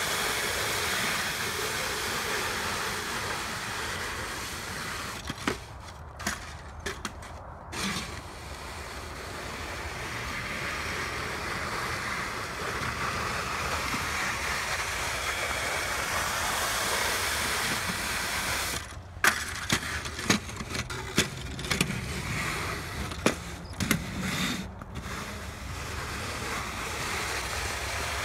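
Push snow shovel's blade scraping along bare lake ice as it drives a strip of snow ahead of it, a continuous hissing scrape. The scraping drops away twice, about six seconds in and again about twenty seconds in, with a few sharp clicks and knocks in those gaps.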